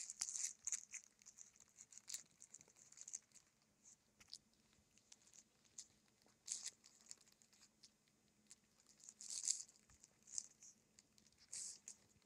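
Faint, scattered rustling and crackling, with the clearest ones about six and a half and nine and a half seconds in, and a faint steady hum underneath.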